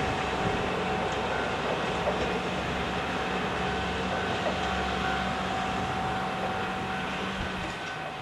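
Kishu Railway KiHa 603 diesel railcar running: a steady engine drone with rail noise and a held whine, fading slightly near the end.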